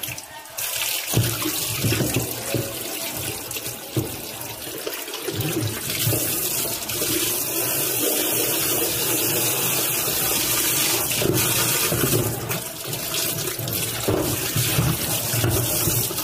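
Water pouring and splashing onto the plastic pulsator inside a Samsung top-loading washing machine tub as it is rinsed clean. The flow grows heavier about six seconds in, with some knocks from handling the plate.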